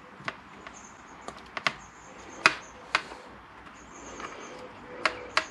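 Scattered sharp clicks and taps from handling a small tube of JB Weld hardener and its cap while piercing its seal and squeezing it out onto an aluminium sheet. The loudest tap comes about two and a half seconds in.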